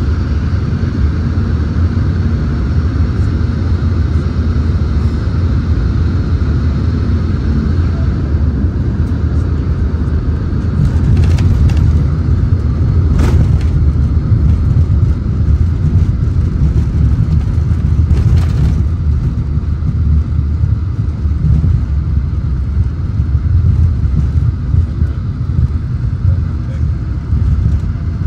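Passenger aircraft cabin noise on landing: a steady engine and airflow rumble with a steady whine. A few brief knocks come between about eleven and eighteen seconds in as the plane touches down, and the rumble grows louder once it is rolling down the runway.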